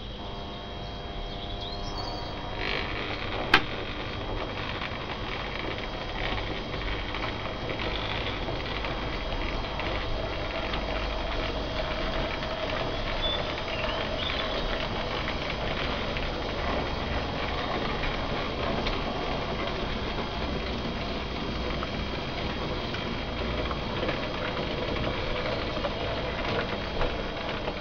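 Two OO gauge model steam tank locomotives, resin P-Class bodies on ready-to-run motorised chassis, running with a train of coaches: a steady whirr and rattle of small motors, gears and wheels on the track. One sharp click comes a few seconds in.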